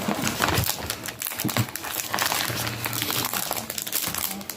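Sticker sheets and their packaging crinkling and rustling as they are handled, in quick irregular crackles.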